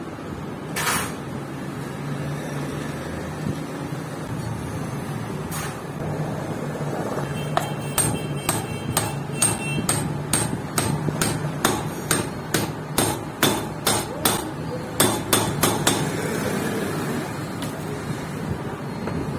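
Hammer blows on metal in a machine shop. There is one strike about a second in and another around six seconds, then a run of quick blows, about two a second, from roughly seven to sixteen seconds in, each with a short metallic ring. A steady machine hum runs underneath.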